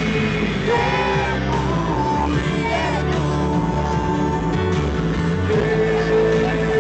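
Live band music with a singing voice carrying long, bending melodic lines over a steady bass.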